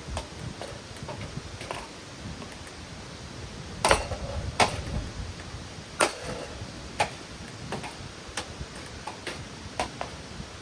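Irregular knocks and clinks of ceiling fan parts being worked on, with a few louder sharp strikes about four and six seconds in.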